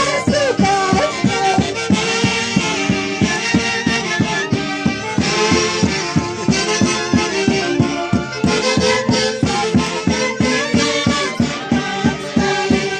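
Andean folk orchestra from Huancayo playing a lively traditional tune, with sustained melody instruments over a steady, quick beat.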